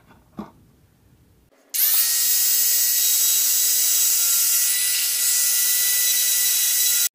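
Corded rotary tool with a small disc bit running at high speed, shaving a shallow recess into a styrofoam board. A steady high whine starts about two seconds in and cuts off abruptly near the end.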